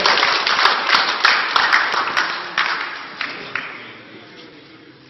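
Applause from a small group, fading away over about four seconds and ending in a few scattered claps.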